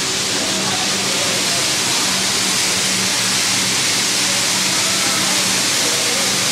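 Steam locomotive venting steam in a loud, steady hiss, with a low hum that comes and goes underneath.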